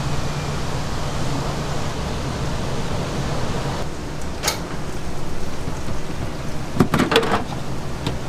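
Steady sizzling hiss of skewered hot dogs deep-frying in oil, over a low kitchen hum. Sharp clacks about four and a half seconds in and a quick cluster near seven seconds come from wooden skewers and clear plastic lids being handled.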